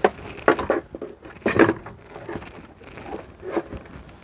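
Crinkly rustling and short handling noises in a few irregular bursts, the strongest about a second and a half in, as things are moved about.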